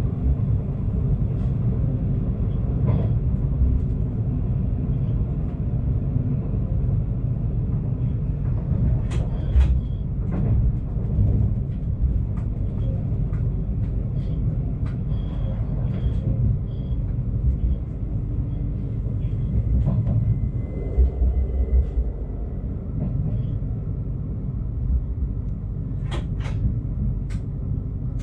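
Stadler GTW train running along the track: a steady low rumble with sharp clicks now and then, several of them close together near the end.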